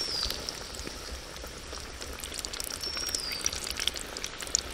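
Battered chicken drumstick deep-frying in well-heated sunflower oil: a steady, dense crackling sizzle as the oil bubbles vigorously around the piece.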